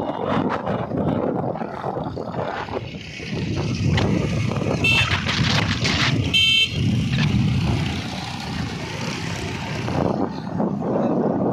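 Road traffic noise with wind on the microphone, and two short, high vehicle horn toots about five and six and a half seconds in.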